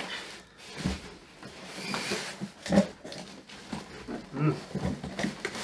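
Plastic wrapping rustling and packing scraping as a bagged TV screen is lifted out of its cardboard box, with a few short pitched sounds, the loudest about halfway through.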